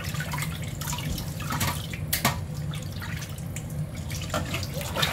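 Hands rubbing and squeezing raw chicken thighs in vinegar water in a stainless steel bowl: wet squelching, splashing and dripping with many small irregular clicks. A steady low hum runs underneath.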